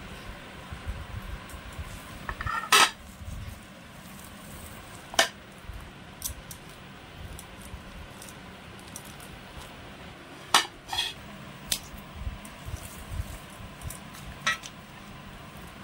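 Ripe sugar palm fruit pulp being squeezed by hand over a steel bowl, with a handful of sharp metallic clinks against the bowl. The loudest clink comes about three seconds in, and a quick cluster follows a little past the middle.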